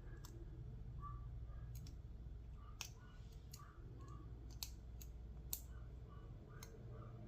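Scattered sharp, faint metallic clicks and taps from the parts of a Federal 200A aluminium padlock being handled during disassembly. The clicks come irregularly, about a dozen in all, over a faint steady low hum.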